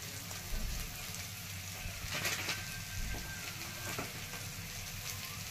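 Chopped onion, tomato and peanuts frying gently in oil in a kadhai, a soft, steady sizzle, with masala powder just added on top. A couple of faint ticks come through about two and four seconds in.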